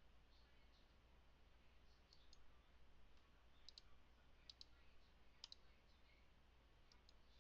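Faint computer mouse clicks, mostly in quick pairs like double-clicks, about five times over a few seconds, over a steady low electrical hum.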